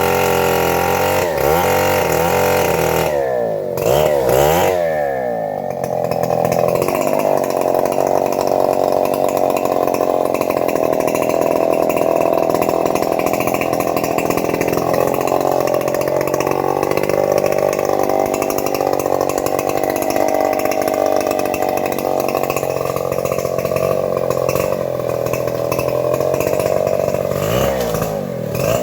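Petrol engine-driven saw cutting teak wood: the engine revs up and down several times over the first few seconds, then holds a steady high speed under load through a long cut of about twenty seconds, and revs up and down again near the end.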